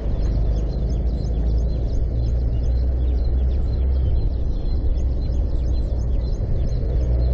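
A steady low rumble, with many small birds chirping quickly and continuously over it.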